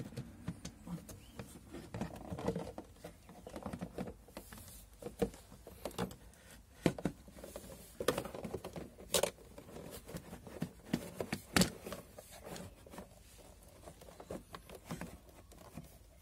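Plastic battery housing being worked down over a car battery: rubbing and scraping of plastic on plastic with many small clicks and knocks. The two sharpest clicks come a little past the middle, about two and a half seconds apart.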